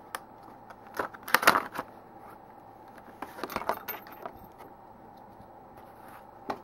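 Clicks and clinks of a watch band tool kit and its packaging being handled, loudest in a short rattling burst about a second and a half in, with another cluster of clinks around three and a half seconds and single clicks near the start and end.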